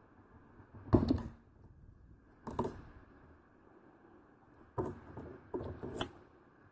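Small metal wrenches clicking and scraping against the retaining clip on the end of a nickel-plated euro lock cylinder as the clip is worked loose, in a few short bursts, the loudest about a second in.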